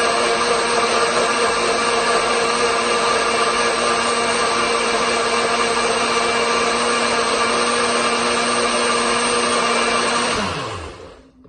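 Nutribullet blender motor running at full speed, blending a banana with almond milk: a loud, steady hum with a noisy rush. About ten seconds in it is switched off and the motor spins down, its pitch falling to a stop.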